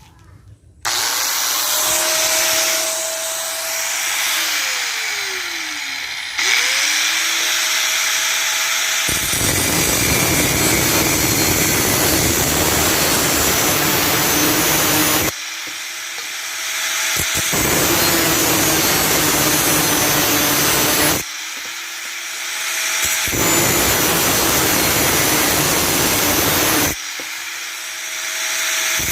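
Electric angle grinder with a cutting disc starting up with a rising motor whine. It then alternates between running free and cutting with a harsh, grating rasp. The rasp eases three times, each time letting the motor whine climb back up.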